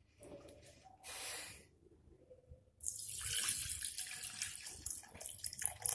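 Water pouring from a bowl into a steel mixer-grinder jar, a steady rush from about three seconds in, with a shorter rush of water about a second in. This is fresh water going in to wash homemade butter again.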